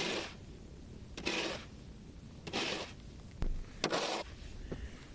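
Snow shovel scraping across a driveway: four short scrapes, one about every second and a bit, each starting with a sharp scrape of the blade.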